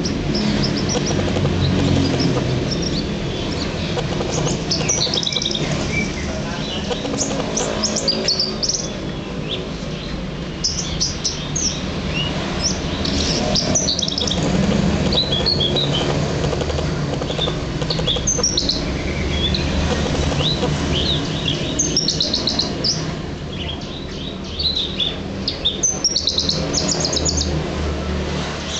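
Javan bushlark (branjangan) singing: bursts of quick, high chirps and trills, with short pauses between them, over a steady low rumble.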